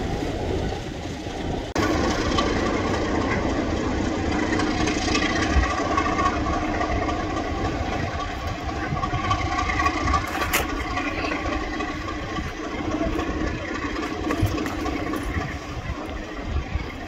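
Goods wagons and a brake van rolling past on the rails, then a Class 33 'Crompton' diesel locomotive's Sulzer engine running steadily under load as it hauls a short freight train away, over a low rumble.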